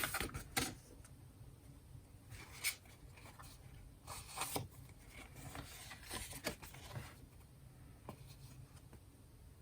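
Light, intermittent rustling and soft tapping of paper and card being handled: folded photo posters and album contents being sorted, in short scattered bursts.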